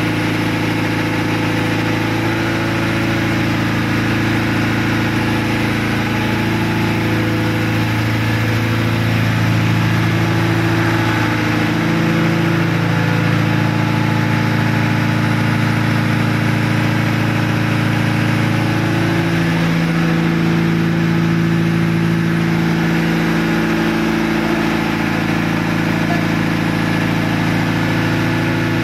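Large multi-cylinder marine diesel engine running steadily in a tugboat's engine room: a loud, unbroken engine drone made of several steady low pitches.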